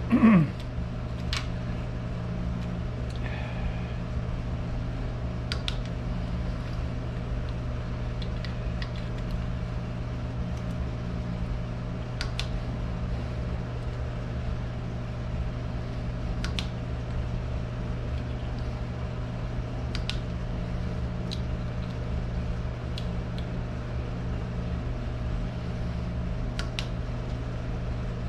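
Steady low hum in a workshop, with scattered light metallic clicks every few seconds from a valve-adjusting tool and feeler gauge working the rocker-arm adjusters. A brief louder sliding sound comes right at the start.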